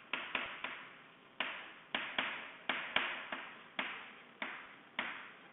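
Chalk writing on a chalkboard: a string of short, sharp taps and scratches, irregular, about two a second.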